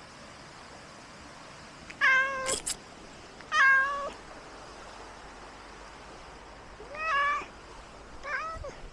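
Domestic cat meowing four times, short pitched calls about half a second each, two close together near the start and two more near the end.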